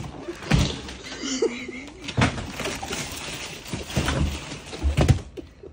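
Duct tape and packaging being pulled and torn off a gift box, a rough tearing and crinkling noise broken by a few knocks of the cardboard box.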